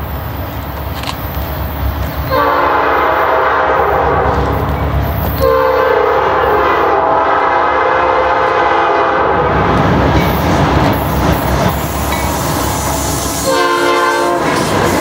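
Nathan P5 five-chime air horn on a Norfolk Southern GE C40-8W locomotive sounding two long blasts back to back from about two seconds in, then a short blast near the end, the grade-crossing horn signal. Beneath the horn, the locomotive's diesel engine rumbles and grows louder as it passes close by.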